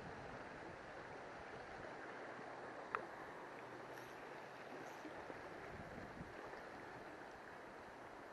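Shallow river water flowing steadily over rocks, with a single sharp click about three seconds in.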